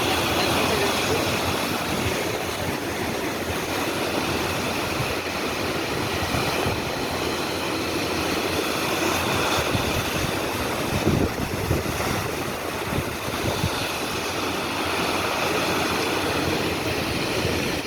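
Sea surf washing against rocks: a steady rushing noise, with a few brief louder surges past the middle.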